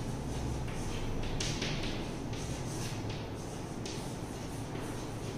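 Chalk writing on a chalkboard: a run of short, scratchy strokes at an irregular pace, over a steady low hum.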